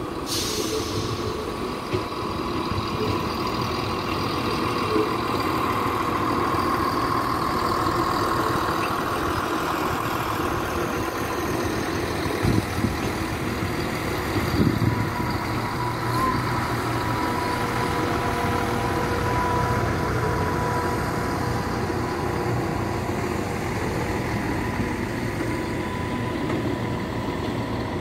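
East Midlands Railway Class 170 Turbostar diesel multiple unit passing slowly, its underfloor diesel engines running steadily with a steady whine over them. A few short knocks come from the train, one about two seconds in and two more around the middle.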